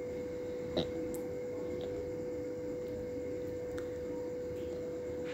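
A steady hum on one note, with a single light click about a second in: the plastic measuring spoon knocking against a small glass cup.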